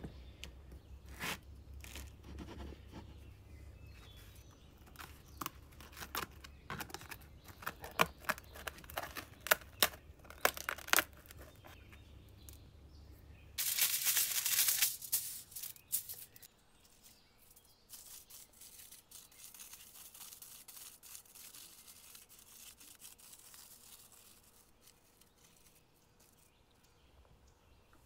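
Aluminium foil being handled and cut with scissors: loud crinkling and crackling about halfway through, then fainter rustling. Before it, a run of sharp clicks and taps from handling.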